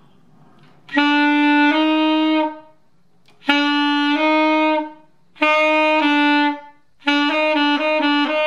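Saxophone playing B and C with the standard fingering, in four short phrases. Each of the first three steps from one note to the other, and the last swaps between them quickly several times. On this fingering the change between the two notes is a cross fingering, where the fingers swap over, which makes the connection less smooth.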